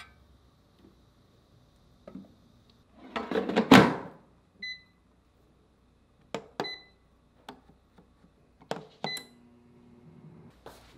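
Air fryer being set up: a loud clatter, then three short beeps from its control panel a couple of seconds apart, with clicks of handling in between. A low steady hum starts near the end.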